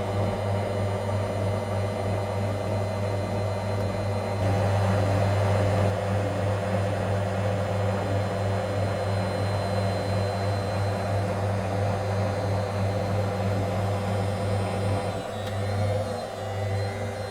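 Servis MK322 washing machine's brush motor spinning the drum on the spin cycle, a steady loud hum with a whir over it. Near the end the hum dips and wavers for a moment, then runs on.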